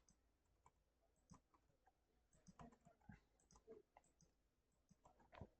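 Near silence with faint, irregular clicks of a computer mouse and keyboard as values are entered in a program.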